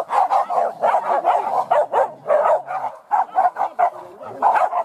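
A pack of hunting dogs barking and yelping in rapid, overlapping barks as they run in chase on a wild boar hunt.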